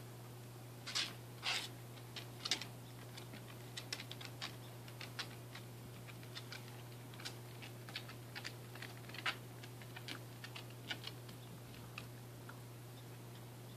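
A small dog crunching ice in its mouth: sharp, irregular crackles, loudest in the first three seconds, then lighter scattered clicks.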